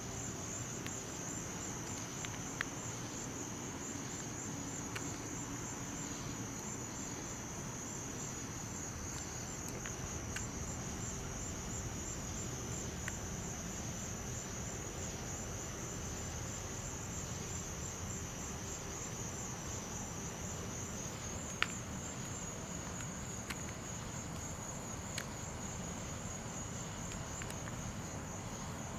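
Steady chorus of night insects such as crickets, a high, even, finely pulsing trill, over a low hiss, with a few faint sharp clicks.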